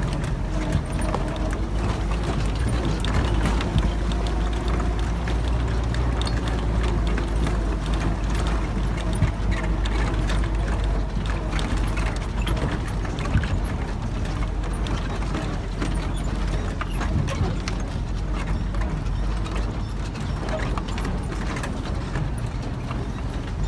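Off-road 4x4 vehicle engine running at low speed, with frequent clatter, rattles and knocks as it crawls over a rough track.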